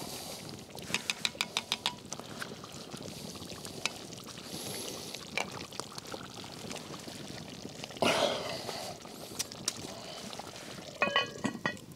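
Thick curry being spooned out of a cast-iron Dutch oven: wet, pouring sounds, with a quick run of small clicks about a second in, a louder scrape about eight seconds in and a ringing knock near the end.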